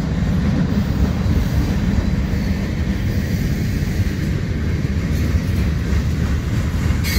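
Freight cars (covered hoppers and autoracks) rolling past at close range: a steady low rumble of steel wheels on the rails.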